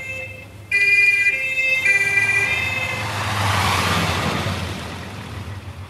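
German two-tone police siren (Martinshorn) alternating between two pitches, then a car's rushing noise swelling and fading away, as the police patrol car arrives.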